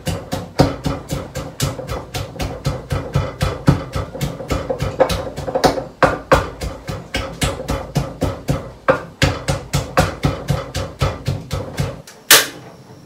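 Wooden pestle pounding chilies and garlic in an earthenware mortar, a steady run of sharp strokes at about three to four a second. The pounding stops near the end, and a single sharp click follows as a gas stove burner is lit.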